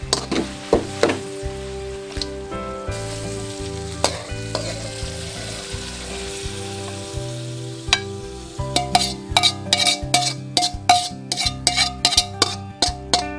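Pork belly and string beans sizzling in a wok while a metal spatula scrapes and taps the pan. Background music plays underneath. The sizzling fades about eight seconds in, and the music, with quick sharp plucked notes, takes over.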